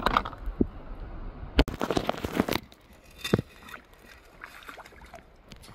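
Metal sand scoop digging into wet sand and gravel: a sharp knock about a second and a half in, then about a second of scraping and rattling, with a shorter scrape a little later and a few faint ones near the end.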